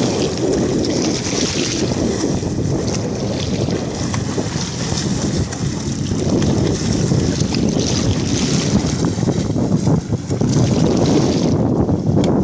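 Wind buffeting the microphone over splashing, choppy water as a swimmer kicks along pushing an inflatable air mattress. The high hiss drops away shortly before the end.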